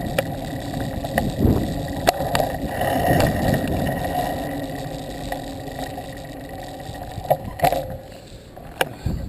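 Rumbling wind and ride noise on a handheld action-camera microphone, with scattered sharp clicks and knocks; it eases off near the end.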